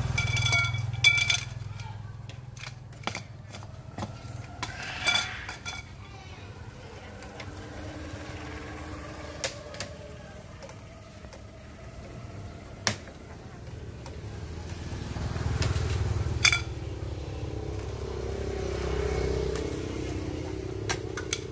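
Scattered light metallic clinks and taps over a low rumble that swells near the start and again about two-thirds of the way through.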